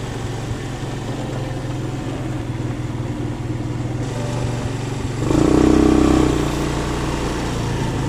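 Scooter riding along at steady speed: a steady low motor hum under road and air noise, with a louder rush lasting about a second, starting about five seconds in.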